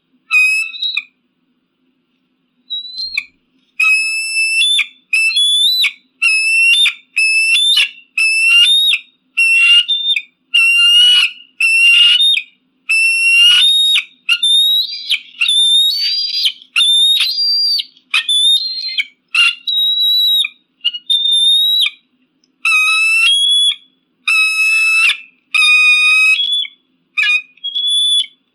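Eagle calling: a long run of short, high, whistled notes, about one and a half a second, starting about three seconds in after a brief note at the very start.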